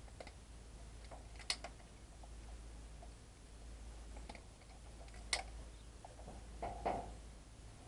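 Quiet handling noise as a cable is moved and pulled: a few light clicks and taps, with two sharper clicks about a second and a half in and about five seconds in, over a steady low rumble.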